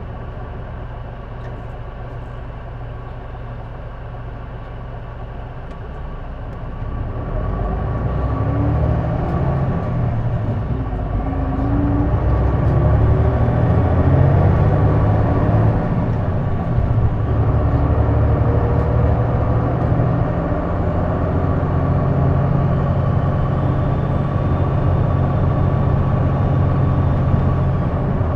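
Turbo-diesel city bus heard from inside, running steadily and then speeding up about seven seconds in, with engine tones rising as it gathers way before settling into steady running. A steady high whine runs throughout. This bus makes an unexplained noise that the uploader places around the exhaust or turbo.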